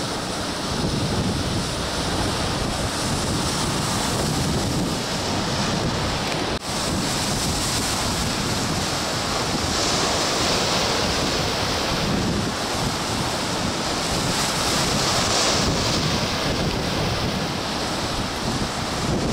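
Storm-driven sea: rough waves surging and breaking against rocks, with strong wind buffeting the microphone. The sound drops out for an instant about six and a half seconds in.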